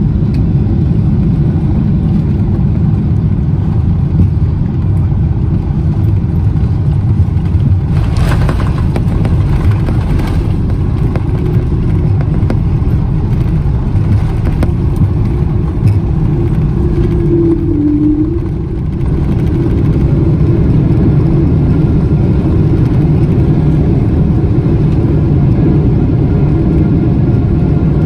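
Steady low rumble of jet airliner engines and airflow, heard inside the passenger cabin, with a brief rise in hiss about eight seconds in.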